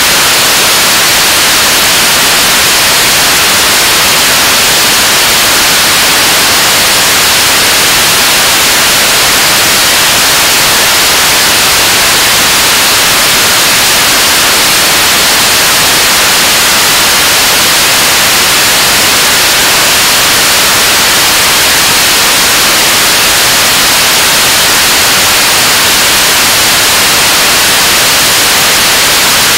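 Korean launch vehicle (KSLV-II) 7-ton-class kerosene/liquid-oxygen rocket engine firing at steady state on a test stand during a 580-second hot-fire test: a loud, unbroken hiss-like roar with no pitch and no change in level.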